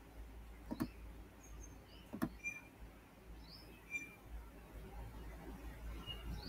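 Two faint clicks of a computer mouse, about a second and a half apart, with a few faint short high chirps behind them.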